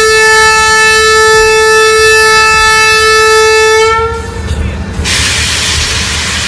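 A diesel locomotive horn sounds one long, steady, loud note that ends about four seconds in, bending slightly up in pitch as it stops. About a second later a steady hissing rush sets in as the train moves off.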